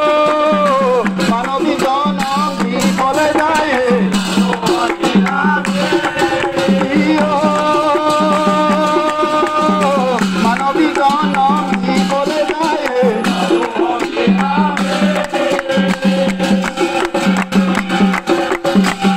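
Devotional music with a melody of long held notes that slide between pitches, over a steady beat of percussion and rattles, with a group clapping along in time.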